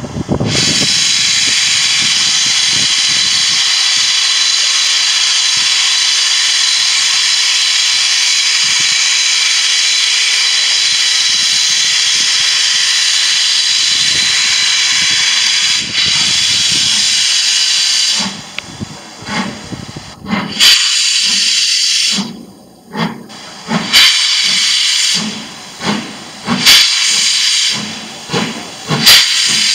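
LMS Black Five steam locomotive 44932 blowing a loud, steady hiss of steam from its open cylinder drain cocks. About eighteen seconds in it starts away, with slow exhaust chuffs about a second apart, each carrying a burst of hiss from the drain cocks.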